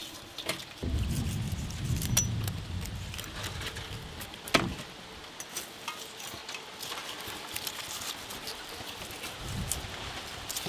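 A steel knife cutting and scraping through the hard, charred crust of a whole spit-roasted beef: scattered clicks and crackles, with one sharp click about four and a half seconds in. A low rumble runs for a couple of seconds near the start.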